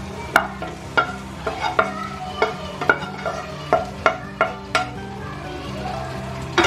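Spatula knocking and scraping against a granite-coated nonstick pan as fried chicken pieces are stirred into onion-tomato masala, over the sizzle of frying. About a dozen sharp taps come a few a second, stopping about five seconds in.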